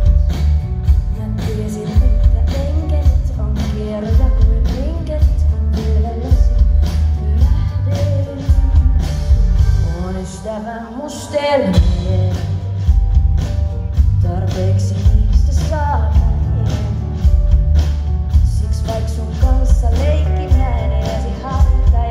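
A live pop-rock band playing, with a woman singing lead over electric bass guitar and drums. The beat drops out for about two seconds around the middle, and a falling sweep leads back into the full band.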